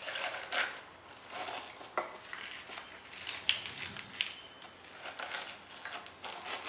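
Fresh spinach leaves crinkling and crunching as they are handled and pressed into the plastic feed chute of a manual juicer. Scattered clicks of plastic and crockery come through, with two sharper ones a little past the middle, the second ringing briefly.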